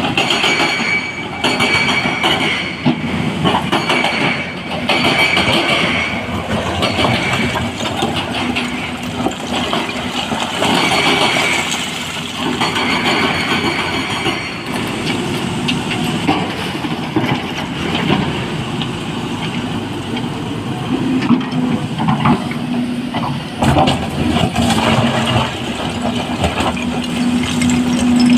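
Excavator at work in a quarry, its diesel engine and hydraulics running loud under dense metallic clattering and scraping. A high squeal comes and goes in the first half, and a steady engine drone rises over the last several seconds.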